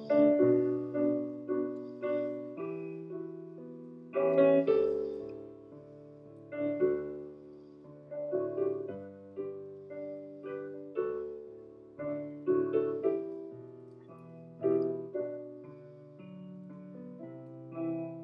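Slow, quiet piano music: single notes and chords struck about once or twice a second, each left to ring and fade.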